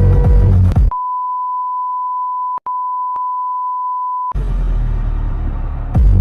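Electronic dance music with a throbbing beat breaks off about a second in for a steady, pure high beep tone. The tone holds for about three and a half seconds, with a brief dropout midway. Then the music comes back near the end.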